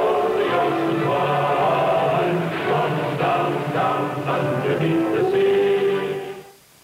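Choral title-theme music for a 1950s television series: a choir singing held notes over accompaniment, fading out about six seconds in.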